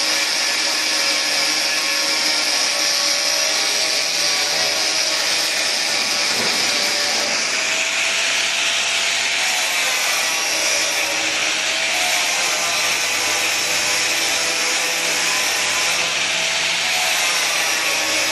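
Power polishing machine working over a stainless-steel furnace body: a steady whir with an abrasive hiss, its pitch wavering a little.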